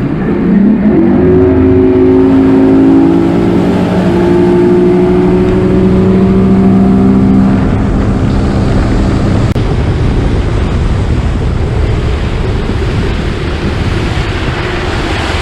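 Bass boat outboard motor accelerating away, its pitch climbing over the first couple of seconds and then holding steady at speed. Over the second half, wind and water rush take over as the boat runs.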